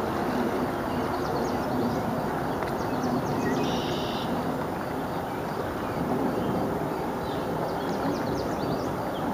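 Metro-North commuter train approaching on the Hudson Line tracks, a steady rumble, with birds chirping now and then.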